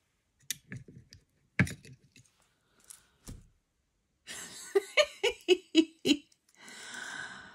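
A few clicks and knocks as badge-press parts are handled, one sharp knock about a second and a half in, then a woman giggling in short bursts and ending with a breathy exhale.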